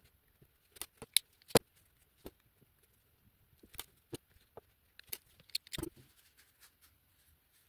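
Handling noise from fingers working a small crocheted piece and its yarn ends: scattered light clicks and taps, a few sharper ones about a second and a half in and a short cluster near the end.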